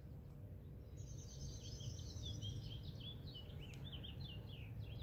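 A small songbird singing a quick string of short, high chirps and sweeps, starting about a second in, over a steady low outdoor rumble.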